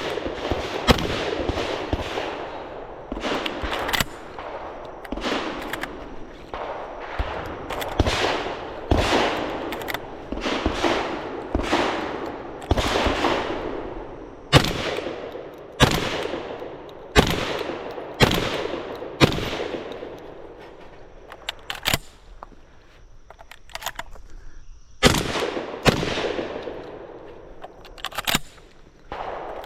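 Browning Auto-5 long-recoil semi-automatic shotgun firing shot after shot, roughly twenty reports spread across the stretch. Each report is sharp and trails off in an echo, and some shots are quieter than others. The shooting comes in quick strings with short pauses between them.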